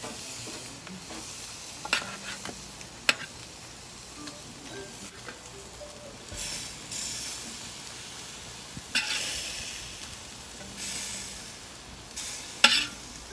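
Vegetables sizzling on a hot charcoal grill as zucchini and tomato halves are laid on the grate with metal tongs. The sizzle swells in spurts as pieces go down, and about four sharp clicks of the tongs on the grate and tray are heard.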